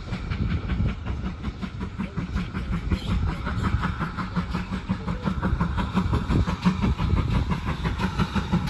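Steam tank locomotive hauling coaches at low speed, chuffing with a quick, even exhaust beat over the clatter of wheels on rail.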